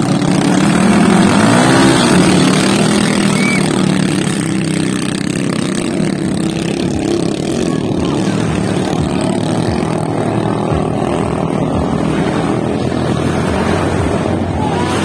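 Boat engine running under way, a loud steady drone, with one brief rise and fall in pitch a second or two in.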